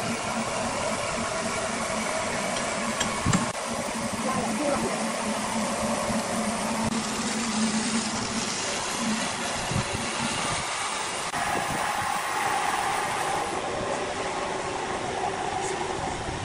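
Pressure washer running steadily, its motor humming under the hiss of water spraying onto a freshly sawn hardwood slab, with one sharp knock about three seconds in.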